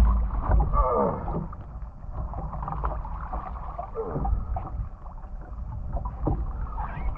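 A person climbing out of the water into a small boat: effortful grunts and heavy breaths, with water splashing and running off against the hull.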